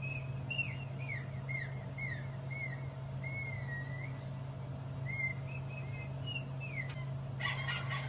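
Whistling: a run of short falling whistles, about two a second, then one long wavering whistle, then a few more falling whistles, over a steady low hum. Near the end a louder, squeaky call begins.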